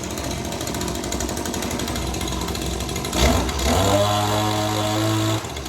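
Echo PPT-2620 pole saw's two-stroke engine idling, then revved up a little over three seconds in and held at high speed for about a second and a half before dropping back to idle.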